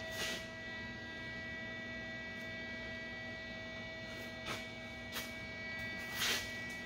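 Steady electrical hum from a MIG welder switched on and standing by, not yet welding. A few short knocks and rustles break in, the loudest near the end.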